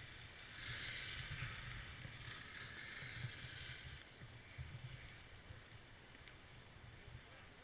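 Snowboard sliding over snow: a hiss of the board on the snow, stronger for the first few seconds and then easing off, over a low rumble of wind on the microphone.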